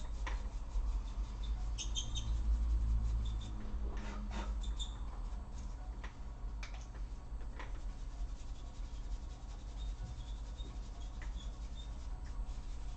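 A small brush rubbing over a laptop cooling fan, with light clicks and faint squeaks from the plastic fan parts being handled, over a steady low hum.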